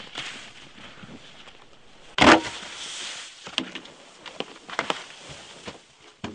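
One loud, sharp bang about two seconds in, followed by several lighter scattered knocks, over a steady hiss.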